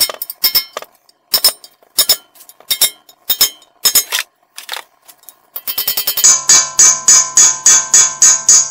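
Hammer striking a small steel chisel against the pressed-in front wheel bearing in a steering knuckle, metal on metal, to knock it loose. Single blows come every half second or so at first. After a brief pause, a fast, steady run of about three ringing blows a second starts around six seconds in.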